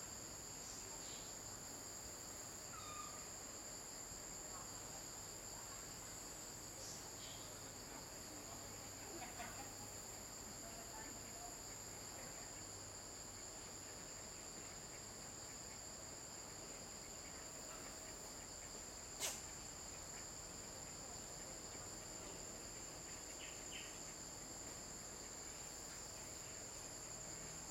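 Steady insect chorus, a continuous high-pitched buzz at several pitches at once, with one sharp click about two-thirds of the way through.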